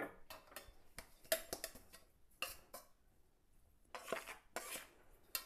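Steel kitchen utensils knocking and scraping against a steel bowl: a string of short clinks and clatters, the loudest about a second and a half in.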